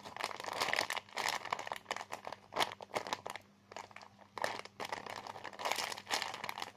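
Crinkling, crunching rustle in irregular bursts as a food-shaped squishy toy is handled and squeezed close to the microphone.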